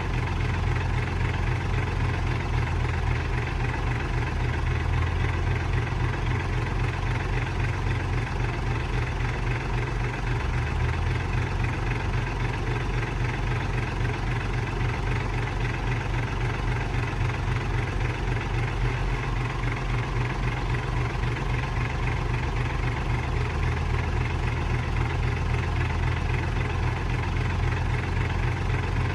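Heavy diesel engine running steadily at an even, unchanging speed, with a strong low throb.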